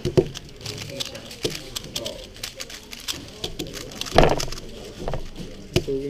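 Plastic speed cube being turned, with quick runs of light clicks and rattles from the layers, and a heavier thump on the table about four seconds in.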